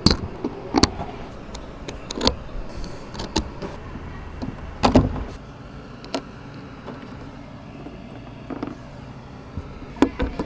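Handling and fitting a Fan-Tastic Ultra Breeze roof vent cover with its pins and washers: scattered clicks and knocks, the loudest about five seconds in, over a steady low hum.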